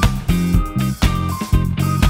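Background music: an upbeat funky instrumental with guitar, a bass line and a steady beat.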